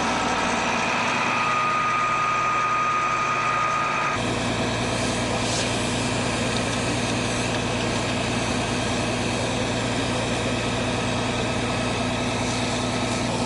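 Engine idling steadily, with a thin steady whine over it for the first four seconds that stops as a deeper hum comes in.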